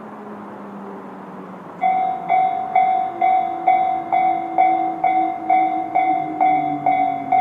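Japanese railway level-crossing alarm, Tobu 'sound C' electronic bell from both sides of the crossing, starts about two seconds in and rings a clipped, ringing tone about twice a second: the crossing has been triggered by an approaching train.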